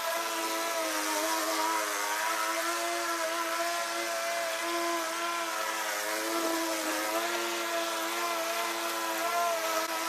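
Small gasoline engine running steadily at a fairly constant speed, its pitch wavering slightly.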